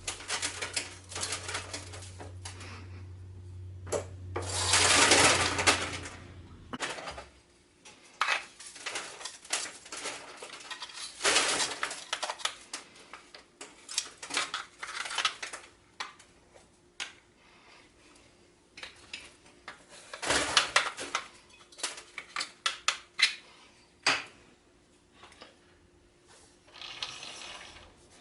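Steel tools and parts clinking and knocking against the metal of a lathe, in many short irregular taps and clatters. A low machine hum runs under the first part and stops about seven seconds in, and a louder rushing noise lasts about a second and a half around five seconds in.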